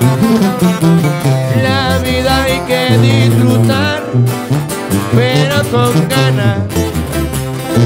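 Live sierreño corrido: strummed twelve-string and six-string acoustic guitars over a tuba bass line, with a man's singing voice.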